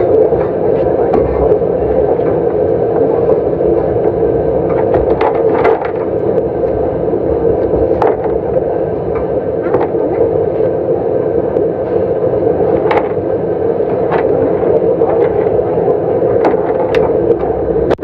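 A loud, steady droning hum with several overtones, under scattered light clicks and taps.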